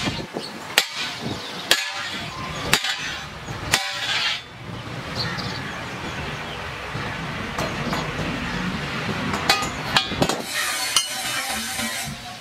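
Hammer blows on a long steel bar resting across a block, four sharp strikes about a second apart, straightening the bar. A few lighter metal clinks follow near the end.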